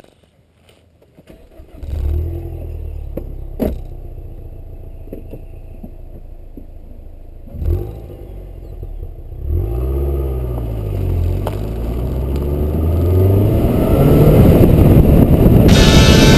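Car engine starting and idling, with a couple of thumps, then the car pulls away, the engine rising in pitch through a gear change as wind and road noise build on the outside-mounted camera. Music comes in near the end.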